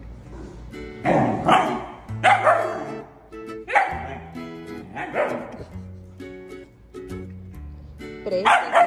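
Young husky barking about six times in short, loud barks over background ukulele music. Near the end it gives one bark that bends up and down in pitch.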